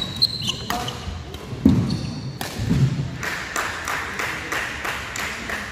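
Badminton doubles play on a wooden indoor court: sharp racket hits on the shuttlecock, brief shoe squeaks, and heavy footfall thumps, about three of them in the first three seconds, then a general murmur of the hall.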